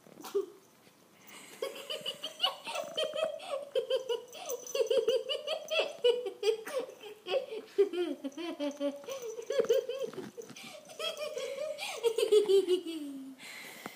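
A person laughing hard, in long, almost unbroken peals, starting about a second and a half in and dying away near the end.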